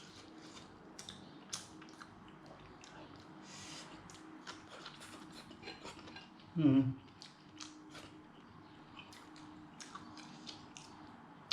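A person eating roast chicken: scattered small clicks and smacks of chewing and of utensils against a plate. About two-thirds of the way through there is one short vocal sound whose pitch falls.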